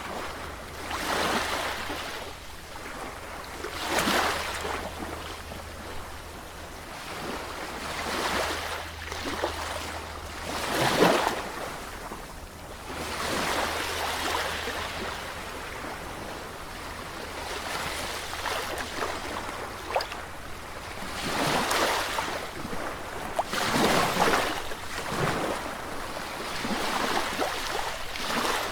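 Sea waves surging and washing in, one swell of rushing hiss every few seconds, the loudest about eleven seconds in.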